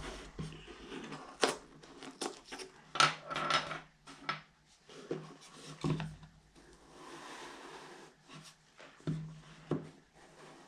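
A small cardboard presentation box being handled and opened: scattered sharp taps and knocks of the box and fingers against it, and about seven seconds in a soft steady rubbing as the tight-fitting lid is worked loose.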